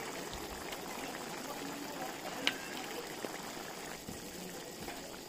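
Creamy calamari and potato sauce simmering and bubbling in a frying pan as a wooden spatula stirs it, with small crackles throughout and one sharp click about halfway through.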